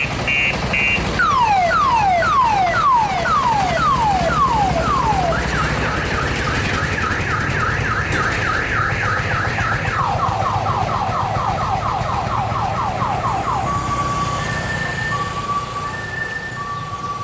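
Electronic multi-tone siren of an odong-odong kiddie-ride train, like a car alarm, cycling through its patterns: slow falling wails about twice a second, then a fast rising chirp, then a fast falling chirp, and near the end an alternating two-tone beep. A steady low hum runs underneath.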